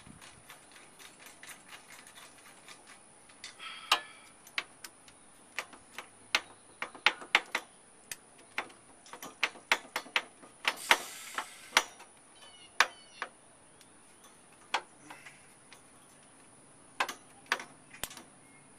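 Hand ratchet clicking in short, uneven strokes while loosening the side-step mounting bolts under a pickup, with a brief rasping scrape about eleven seconds in.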